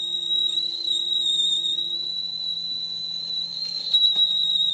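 Metal lathe turning a steel tractor axle part, with the cutting tool giving off a steady, high-pitched whistle over a low machine hum. A brief click comes near the end.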